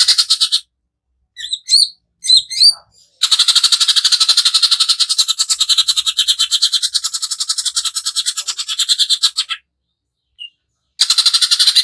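Greater green leafbird (cucak ijo) singing in harsh, rapid-fire rattles ('tembakan kasar'). A short rattle opens, a few sharp separate chirps follow, then one long fast rattle of about six seconds, and another rattle begins near the end.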